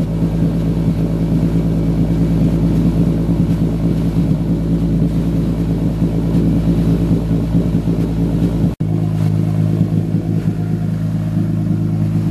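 Straight-piped Lexus IS250's 2.5-litre V6 idling steadily through its open exhaust, a loud, even low drone with no revving. A short dropout about nine seconds in, after which the idle carries on with a slightly different tone.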